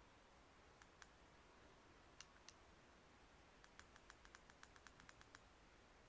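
Faint clicking of a button on a Smok vape mod that won't turn on: a few single clicks, then a fast run of about a dozen clicks.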